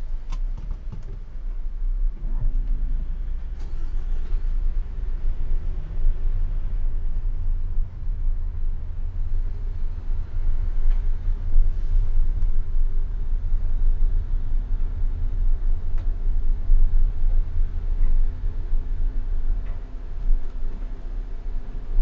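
Car driving slowly, its engine and tyres making a steady low rumble with a faint hum.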